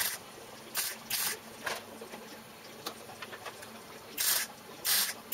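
MIG welder tack-welding a steel repair panel onto a car's A post: a series of short crackling bursts, each a fraction of a second, in two groups with a quiet gap of about two seconds between them.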